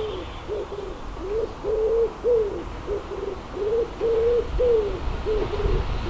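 A wood pigeon cooing: a repeating run of soft, low notes, with a longer stressed note about every two seconds. A low rumble underneath grows louder near the end.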